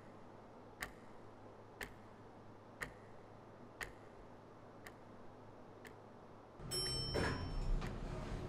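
Wall clock ticking once a second, the ticks growing fainter. About two thirds in, a louder steady low room hum comes in with a brief rustling swell, and the ticking carries on faintly under it.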